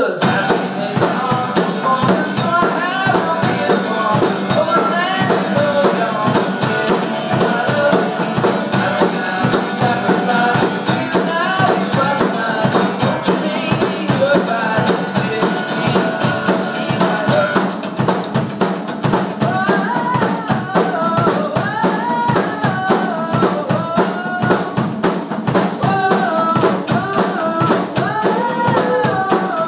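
Live pop-folk song: a man singing over strummed acoustic guitar, with a drum kit keeping a steady beat. The singing comes through more strongly in the second half.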